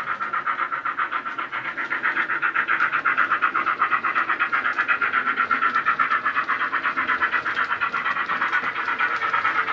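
Bachmann 45XX Prairie model steam locomotive's Loksound 5 micro sound decoder playing a Jamie Goodman steam sound through a small sugarcube speaker: rapid, even exhaust chuffs of a loco running at speed, growing louder over the first few seconds.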